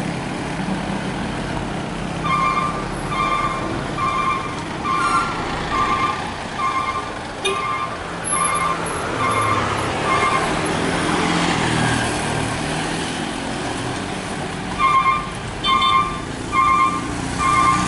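A loaded truck's reversing alarm beeping in an even series, a little faster than one beep a second, over the low running of its diesel engine. The beeping stops for a few seconds while a vehicle passes, then starts again near the end.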